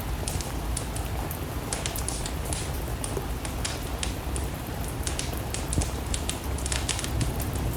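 Steady rain falling, mixed with a wood fire crackling in a fireplace: irregular sharp crackles and pops over a constant hiss and low rumble.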